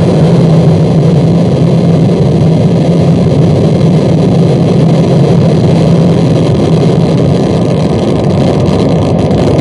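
Harsh noise: a loud, dense, unchanging wall of distorted noise with a heavy low drone underneath.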